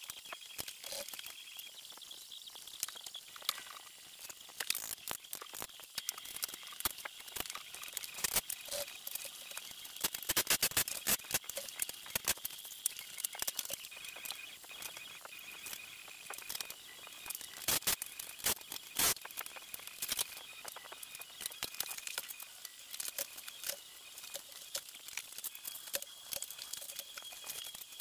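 Scattered clicks, taps and light rattling from hand tools and hardware being handled, with a denser run of taps about ten seconds in and two sharper knocks near the end.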